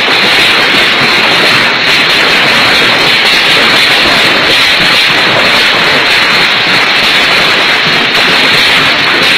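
Hailstorm with strong wind: a loud, steady, dense rushing noise.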